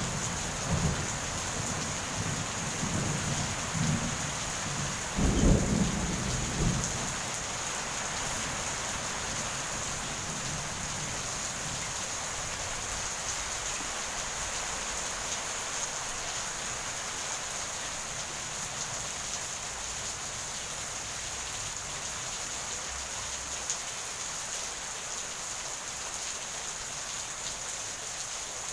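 Heavy, steady rain with rolling thunder rumbling through the first several seconds, loudest about five and a half seconds in, then dying away to rain alone.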